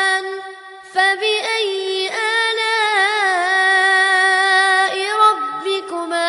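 A high voice reciting the Quran in a melodic, chanted murottal style, holding long wavering notes. There is a short pause for breath about half a second in.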